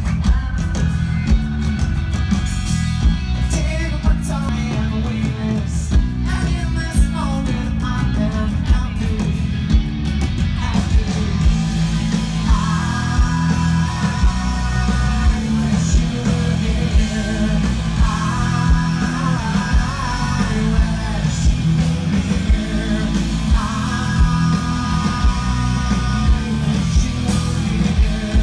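Live rock band playing, heard from the crowd: a heavy bass and drum beat with guitar, and a male singer's vocals over it.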